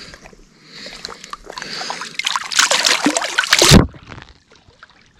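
Lake water splashing and sloshing as a caught fish is let go, building over a few seconds and then cutting off suddenly.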